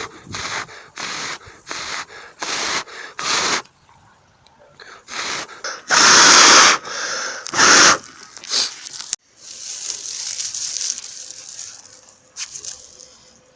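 Someone blowing in quick, even puffs onto a smouldering ember in tinder to fan it into flame. Two longer, harder blows follow, then a stretch of hissing.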